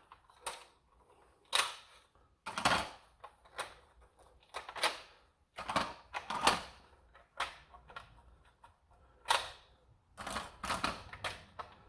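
Irregular sharp plastic clicks and clacks, about a dozen, as the toy dart blaster's small plastic magazines are handled and unclipped one after another.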